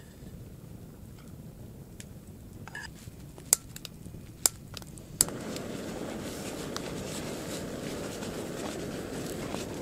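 Wood campfire crackling, with a few sharp pops. About five seconds in, a louder, steady hiss sets in and carries on.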